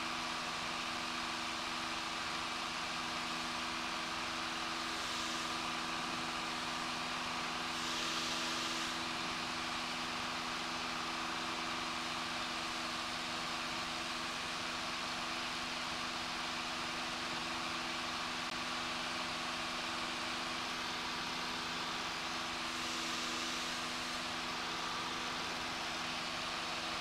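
Single-engine piston airplane's engine and propeller droning steadily in flight, an even hum with a hiss that swells briefly twice.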